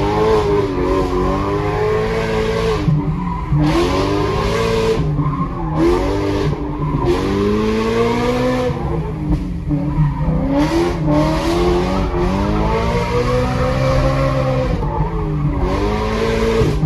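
Car engine heard from inside the cabin, revving up and falling back repeatedly as the car is driven hard through tight bends, with tyre squeal as it slides wide through the corners.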